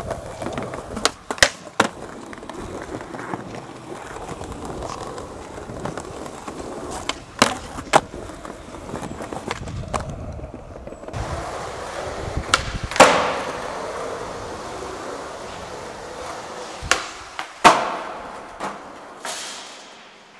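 Skateboard urethane wheels rolling on concrete, broken again and again by sharp wooden clacks of the board's tail popping and the board landing. The two loudest landings come a little past halfway and again about four seconds later, each followed by the roll of the wheels running on.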